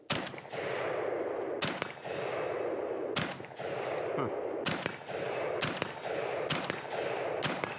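AR-15 rifle with an Aero Precision enhanced upper firing seven single shots, one about every second to second and a half, with a lingering smear of noise after each shot.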